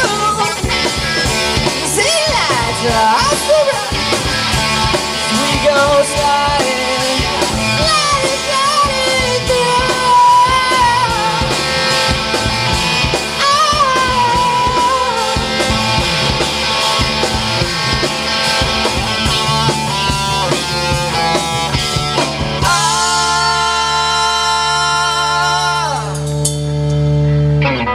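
Live rock band of overdriven electric guitar, bass guitar and drum kit playing, with a lead line bending up and down in pitch through the middle. From about five seconds before the end, the band holds one long final chord that stops abruptly, ending the song.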